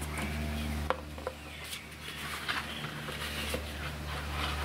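A plastic gallon jug of white vinegar being handled: a few light knocks and rubbing of plastic, the sharpest near the start and about a second in, over a steady low hum.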